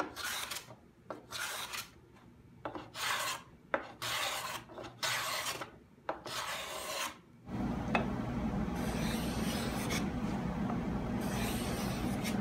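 Hand tool shaving and scraping across a mahogany panel in separate strokes, roughly one a second; about seven and a half seconds in, it gives way to a denser, continuous rasping with a low rumble beneath.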